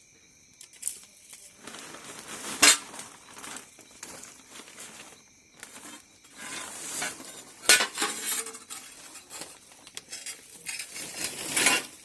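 Bonfire of dry brushwood burning, crackling in swelling bursts with sharp pops, the loudest about three seconds in, about eight seconds in and just before the end.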